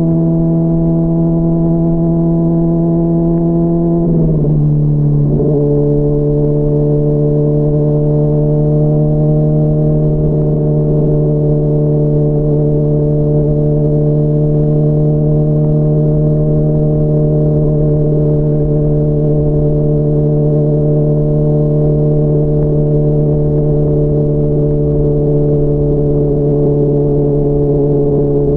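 Honda CBR600RR's inline-four engine under way at steady revs. About four seconds in, the pitch drops sharply for a moment, then settles into a slightly lower, even tone that holds.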